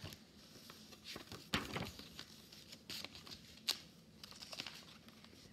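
Pages of a large picture book being turned and handled: faint paper rustles with a few light taps and clicks.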